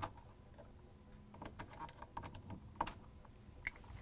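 Faint clicks and light plastic taps as a small flathead screwdriver pries the wire connectors off the terminals of a refrigerator door switch. Sharper clicks come at the start, just before three seconds and again near the end.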